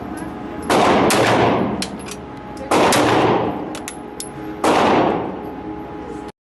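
Gunshots fired at a slow, steady pace, a loud shot about every two seconds with fainter cracks in between, each followed by a ringing tail. The sound cuts off suddenly near the end.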